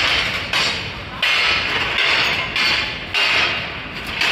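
Loud street banging, about six irregularly spaced bangs, each trailing off over roughly half a second and echoing between the buildings, like construction work on a city street.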